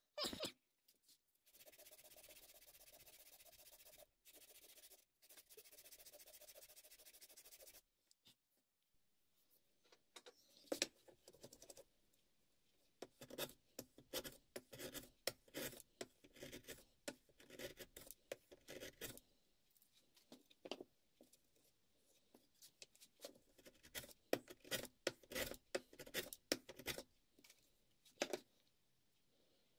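Small wooden pieces handled and rubbed on a wooden workbench. First comes a steady rubbing noise for about six seconds, broken once. After that there are scattered light scratches, rubs and taps.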